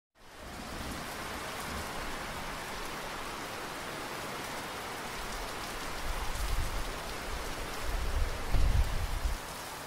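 Steady rain ambience fading in at the start. In the last few seconds low rumbles of thunder swell in, loudest about a second before the end.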